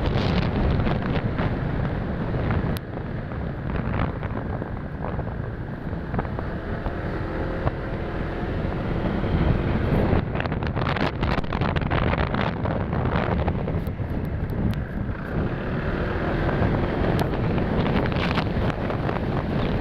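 Wind rushing over the microphone of a moving motorcycle, gusting and crackling, with the bike's engine faintly underneath.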